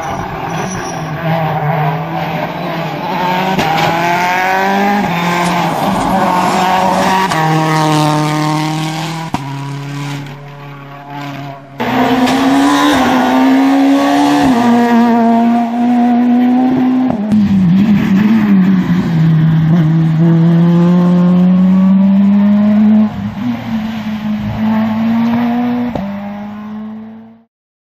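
Rally car engines at high revs, the pitch climbing and dropping in steps with each gear change. A sudden cut about twelve seconds in brings a second, louder car, whose sound stops abruptly near the end.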